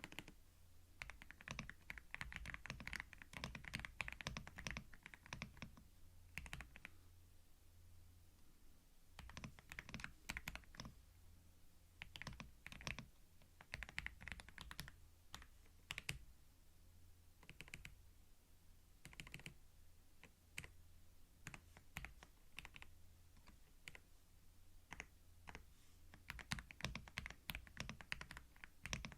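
Typing on a computer keyboard, recorded binaurally close to the mic: runs of quick key clicks and taps broken by short pauses.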